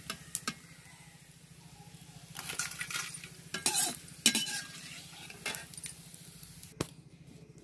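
A steel spatula scraping and clinking against a steel kadhai as pieces of homemade papad are stirred and fried in oil, with a light sizzle underneath. The scrapes come in uneven strokes, thickest around the middle.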